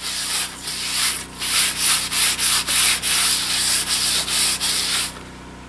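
Oiled paper towel rubbed hard around the inside of a fire-stripped cast iron frying pan, wiping out the last rust powder: rubbing strokes at about three a second, stopping shortly before the end.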